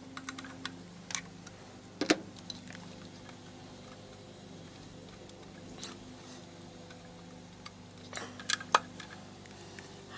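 Scattered metallic clicks and clinks of hand tools and parts being handled while working on a van's carburetor and choke preheater fittings, over a faint steady hum. There is a louder clink about two seconds in and a quick cluster of clicks near the end.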